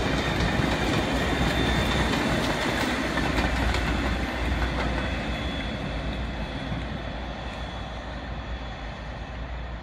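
Class 57 diesel locomotive's EMD two-stroke engine running with a deep steady rumble and rail wheel clatter as it passes, then fading steadily as it draws away.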